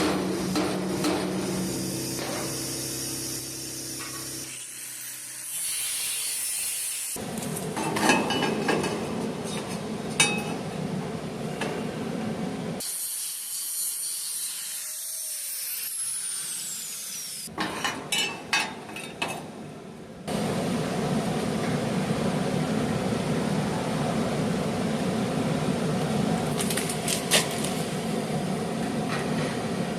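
Power-tool and hand-tool work on the fuel access port, in several short clips with abrupt cuts between them: a tool motor running and cutting, and a few sharp knocks.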